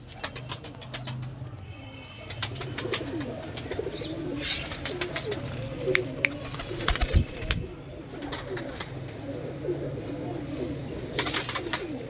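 Pigeons cooing, several low wavering coos overlapping, with many sharp clicks and taps scattered through.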